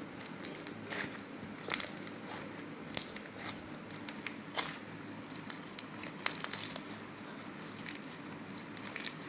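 Crunchy, sequin-filled slime being squeezed and worked by hand, giving faint, scattered crackles and pops about once a second.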